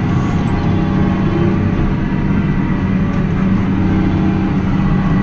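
Tractor engine running at a steady speed while pulling a hay rake: a low, even drone that does not change.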